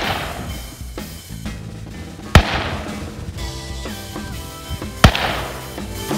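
Handgun shots, one at the start and two more about two and a half seconds apart, each a sharp crack with a fading echo. Background music plays throughout.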